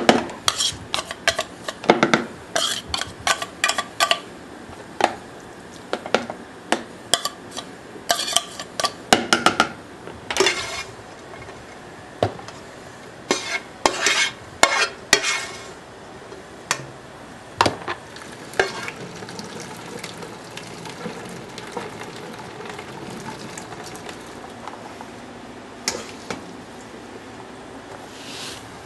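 Kitchen food-prep sounds: a quick run of clinks, taps and knocks from utensils, a can, pots and plastic food containers through the first half. Then a steadier hiss with only a few knocks.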